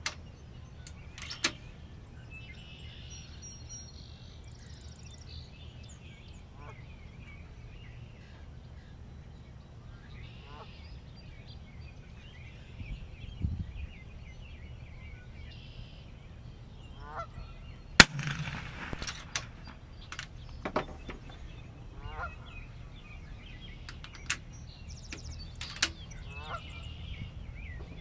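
Geese honking faintly and repeatedly, with one sharp report about two-thirds of the way through that is the loudest sound: a shot from a PCP air rifle. A few small clicks are scattered through.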